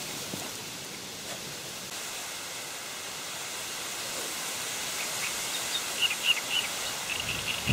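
Steady wind hiss over rippling open water, with faint short high chirps starting about two thirds of the way in.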